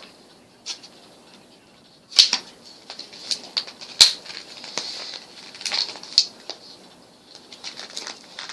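Packaging being pried and torn open by hand: a quick, irregular string of crackles and snaps that starts about two seconds in, with the sharpest snaps about two and four seconds in.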